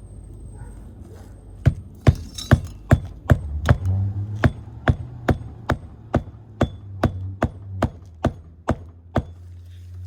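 Hammer striking roofing nails into asphalt shingles: a quick, even run of about twenty sharp blows, two or three a second, starting just under two seconds in and stopping near the end. A low steady hum sits underneath from about four seconds in.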